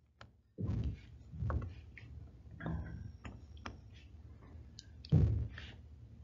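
Irregular clicks and a few soft knocks of computer input, a keyboard and mouse or pen being worked by hand, spaced about a second apart.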